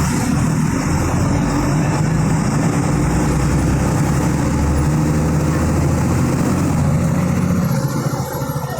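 Diesel engine of a Volkswagen 17.210 EOD bus chassis running, a loud steady drone that drops away shortly before the end.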